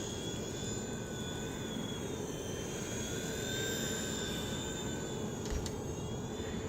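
WLToys V911 micro RC helicopter flying, its small electric motors and rotors giving a steady high-pitched whine of several tones that drift slightly up and down in pitch as the throttle changes.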